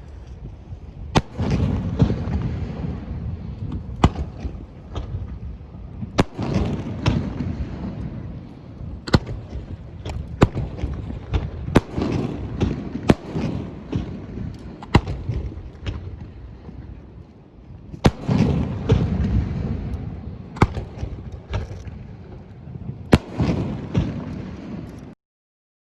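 Fireworks display: sharp bangs every one to three seconds, each trailed by a rumbling, crackling swell as the shells burst. The sound cuts off abruptly near the end.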